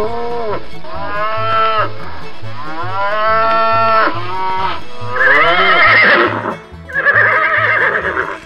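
Dubbed-in farm-animal call sound effects over background music with a steady beat: several long calls that rise and fall, then two shaky, wavering horse whinnies near the end.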